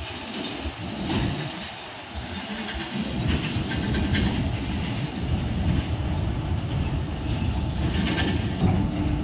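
Enclosed BCACBM-B car-carrier freight wagons rolling past: a low rumble of steel wheels on the rails, with short high-pitched wheel squeals and a few clanks. The rumble grows louder about three seconds in.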